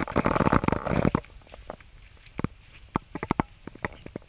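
Rustling, crackling handling noise on the camera microphone for about the first second, as fabric or a hand rubs near it, then a few scattered sharp clicks.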